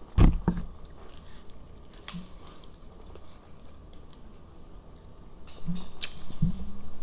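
Close-miked chewing and mouth sounds of people eating a burger and fries. A loud low thump comes just after the start, there are light clicks through the middle, and a short low hum sounds near the end.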